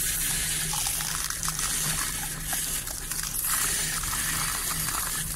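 Water gushing steadily from a delivery pipe on a compressor-driven borewell, over a steady low hum.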